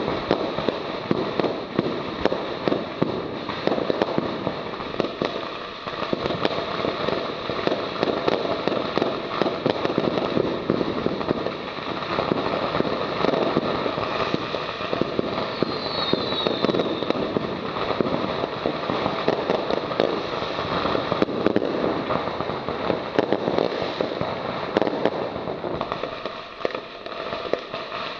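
A 111-shot consumer fireworks cake going off, giving a dense, continuous crackle of many rapid small pops with no break.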